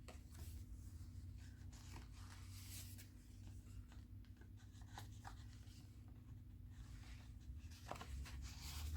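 Faint rustling and light clicks of paper pages and tags of a handmade junk journal being handled and turned, over a steady low hum.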